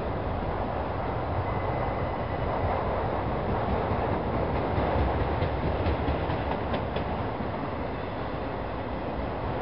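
Freight train of autorack cars rolling past, a steady rumble of steel wheels on the rails, with a few faint clicks about six to seven seconds in.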